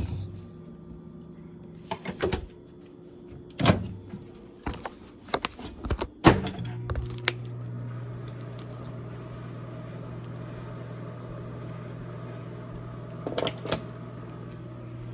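Several sharp knocks and clicks of handling, then, about six and a half seconds in, a steady low electrical hum starts up, like a household appliance switched on.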